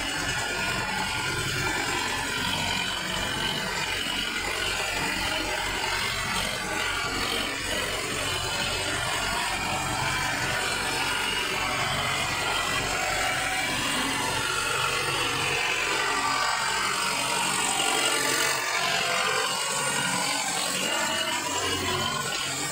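Sonalika diesel tractor engine running steadily under load, driving a rotavator that churns through a flooded, muddy paddy field.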